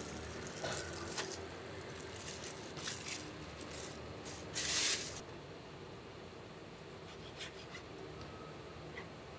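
Plastic bag rustling and crinkling as it is pulled off a mound of raw meat, with a loud harsh crinkle about halfway through. After that it goes quieter, with a few light taps of a knife on a plastic cutting board.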